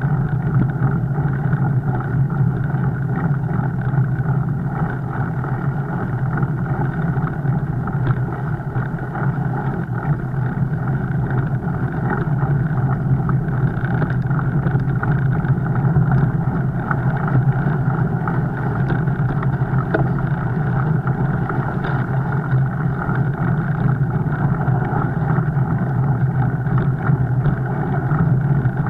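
Steady rolling and rushing noise of a fat bike being ridden, with a constant low hum and no let-up.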